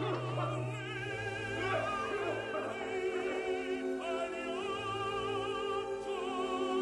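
Operatic singer holding long notes with wide vibrato over orchestral accompaniment.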